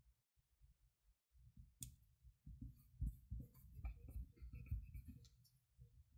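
Faint handling of paper and craft pieces on a work table. It is almost silent at first, then a sharp click comes about two seconds in, followed by soft rustles and light knocks.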